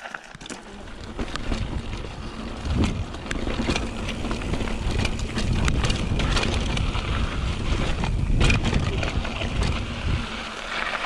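Mountain bike riding over a rough dirt trail: a steady rumble of wind buffeting the microphone, with scattered sharp knocks and clacks from bumps along the way.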